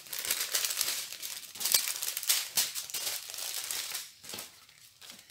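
Small plastic packets of diamond painting drills crinkling and rustling as they are handled, with the rustling dying away near the end.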